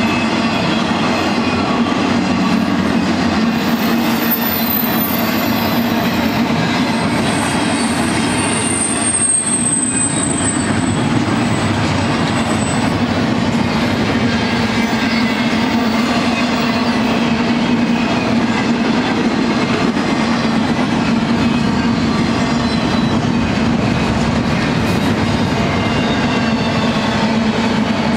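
BNSF double-stack intermodal train's well cars rolling past at speed: a steady rumble and clatter of wheels on rail. High thin wheel squeals rise out of it a few seconds in and again around ten seconds in.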